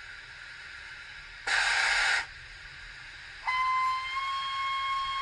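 Steam locomotive sound effects from a Stirling Single model: a short, loud burst of steam hiss, then, about three and a half seconds in, a steady steam whistle that holds on, over a faint continuous hiss.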